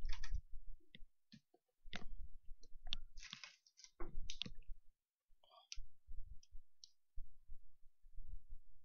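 Irregular light clicks and taps, with short low bumps in the second half, like small objects being handled by hand.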